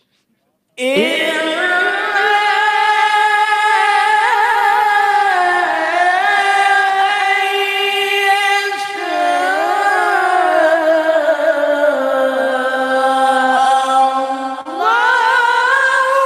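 A male qari reciting the Quran in melodic, drawn-out style through a microphone: after a second of near silence, one long phrase of sustained notes with wavering ornaments, then a short breath near the end and a new, higher phrase.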